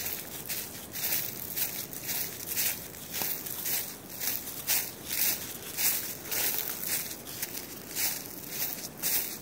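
Footsteps crunching through dry fallen leaves at a steady walking pace, about two steps a second.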